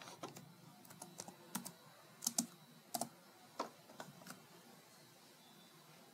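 Faint typing on a computer keyboard: scattered single keystrokes, stopping about four seconds in.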